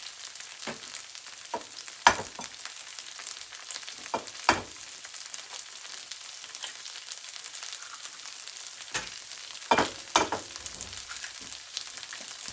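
Southwest-style hash browns frying in hot oil, a steady sizzle, broken by a scattering of sharp knocks and taps, the loudest about two seconds in.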